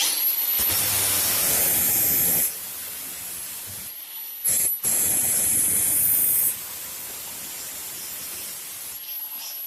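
Power tool, likely an angle grinder with a cut-off wheel, spinning up with a high whine and scoring a slot into a thin steel strip, in two louder cutting passes with the tool running between them.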